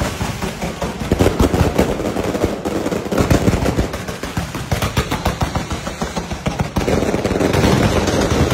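A long string of firecrackers going off in a rapid, dense run of loud bangs, many a second.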